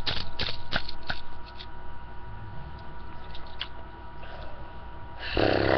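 Handcuffed hands clapping, about three sharp claps a second, stopping about a second and a half in. Near the end comes a short, loud, rasping vocal growl.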